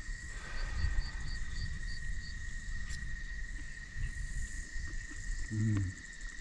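Evening insects keep up a steady high-pitched drone. A quick run of about seven short high chirps comes between half a second and two seconds in. A low rumble runs underneath, and a brief low hum comes about five and a half seconds in.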